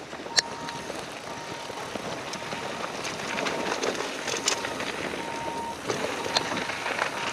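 Ghost FR AMR mountain bike ridden fast down a bike-park trail, heard from an on-bike action camera: a steady rush of tyres and wind that builds as speed picks up, broken by sharp knocks and clatters over bumps, the sharpest near the start. A faint whine comes and goes.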